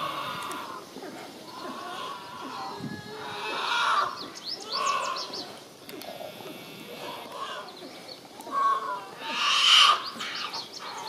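Black bear cubs crying from up a tree: a string of whining bawls, each half a second to a second long, the loudest near the end. These are the distress cries of cubs treed by dogs.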